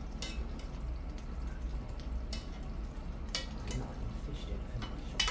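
Fish cooking in a pot of brown stew gravy, a faint sizzle over a steady low hum, with about four short sharp clinks of a utensil against the pot, the loudest near the end.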